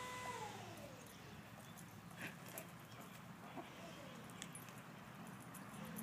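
Dogs playing, heard faintly: a few short whimpers and yips with light clicks and scuffles. Just after the start a steady whining tone slides down in pitch and fades.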